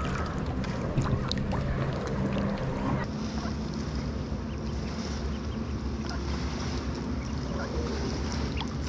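Lake water lapping and splashing over a steady low rumble of wind on the microphone, with a few faint ticks; the sound changes abruptly about three seconds in.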